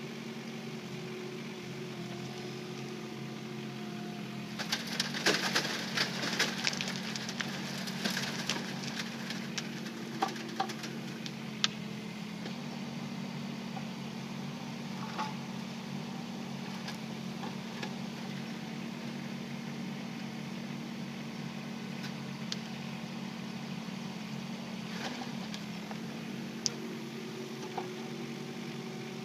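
Kubota K008-3 micro excavator's diesel engine running steadily, with a stretch of rattling and knocking about five seconds in that lasts several seconds, and a few single knocks later.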